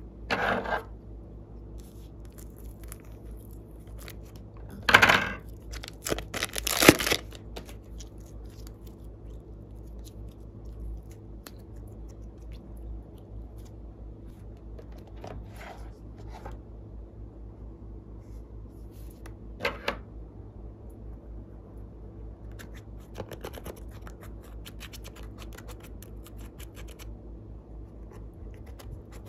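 Slime being worked by hand: a few short sticky crackles and tearing sounds, the loudest two near a quarter of the way in, then faint fine clicking later, over a steady low hum.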